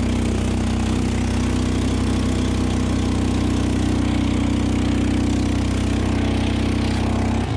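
Quad bike (ATV) engine running at a steady, unchanging speed. Right at the end the sound changes abruptly to a lower, pulsing beat.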